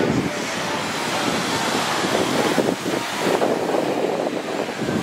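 Wind rushing across the microphone over small waves breaking on a sandy beach, a steady noise that rises and falls with no distinct events.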